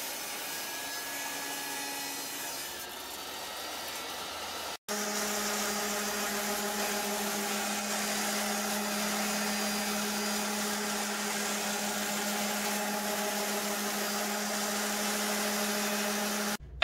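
A jobsite table saw cutting through an end-grain wenge cutting board, trimming its edge. About five seconds in, this cuts off abruptly and a random orbital sander starts running steadily on the board's face, a louder, even hum.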